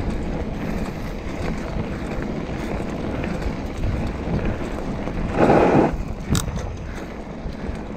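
Wind rushing over the microphone of a moving bicycle rider. A louder rush of noise comes about five and a half seconds in, with a sharp click just after.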